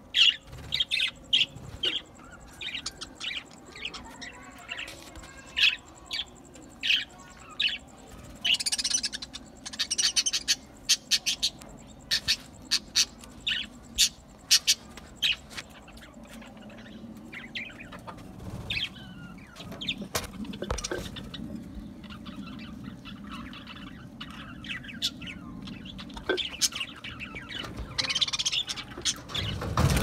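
A flock of budgerigars chirping and chattering: many short, quick chirps overlapping, densest in the first half and thinning out later. A low rumble builds near the end.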